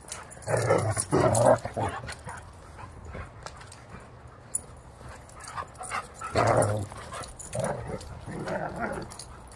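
A dog vocalizing in rough play with another dog, making a string of play noises in three bursts: near the start, about six seconds in, and again about eight seconds in.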